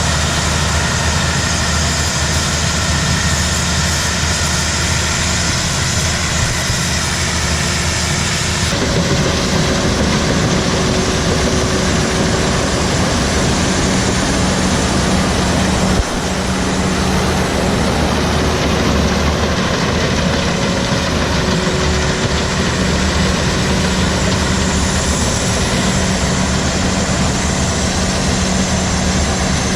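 Loud, steady running of a rice combine harvester's diesel engine and machinery, its character changing abruptly about nine seconds in and again about sixteen seconds in.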